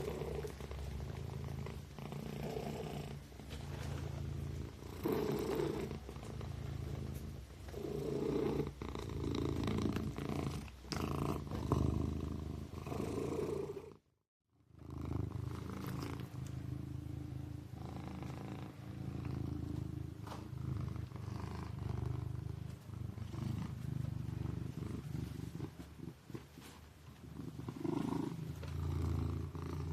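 Kitten purring in repeated swells, one every second or two. The sound cuts out suddenly for about half a second about halfway through.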